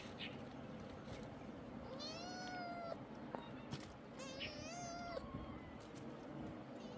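A kitten meowing twice, each meow about a second long, rising at the start and then held, with a couple of short clicks between them.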